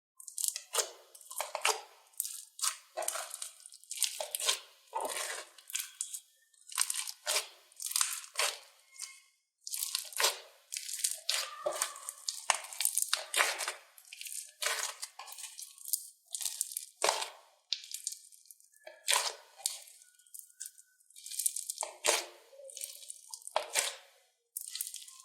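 Hands working slime, giving a run of short crackling, crunching squishes about one or two a second, with a few brief pauses.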